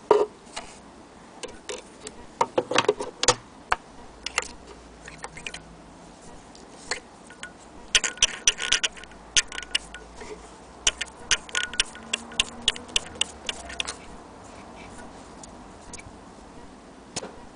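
Light metallic clicks and taps in irregular clusters from handling the parts of an antique Singer 15K80 hand-crank sewing machine while it is threaded.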